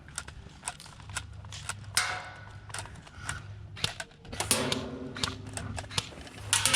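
Airsoft guns firing: a string of sharp, irregularly spaced snaps, more than a dozen over several seconds.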